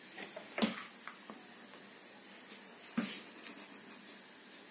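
A tabby cat rolling about on a floor, its body bumping down in two soft thuds, the louder about half a second in and another about three seconds in, with a few faint clicks between; the rolling is its reaction to valerian.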